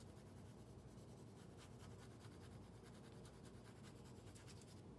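Faint scratching of a colored pencil shading back and forth on sketchbook paper.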